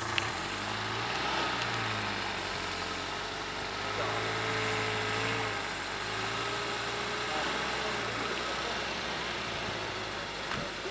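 Santana (Suzuki SJ) 4x4's engine running at low revs as it crawls through a deep rut off-road, its pitch rising and falling gently with the throttle. A single click sounds just after the start.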